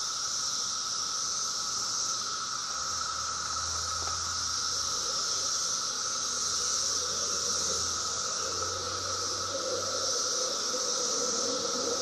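Chorus of 17-year periodical cicadas: many males calling for mates at once, making a steady, unbroken high drone with a second, lower steady tone beneath it.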